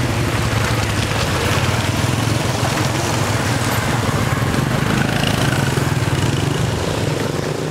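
A vehicle engine running steadily with a constant low hum, under a noisy outdoor street haze.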